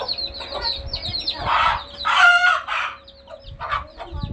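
Newly hatched chicks peeping steadily in quick, high, falling cheeps, with a loud call from an adult chicken about a second and a half in.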